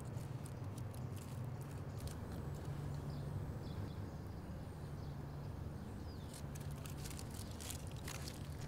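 Outdoor ambience: a steady low rumble with scattered light clicks and a few faint bird chirps.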